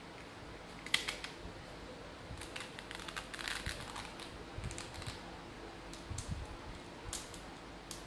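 A small plastic handheld wireless keyboard being handled: scattered clicks and plastic rattles as it is turned over in the hands, with a denser run of clicks and rustling a few seconds in.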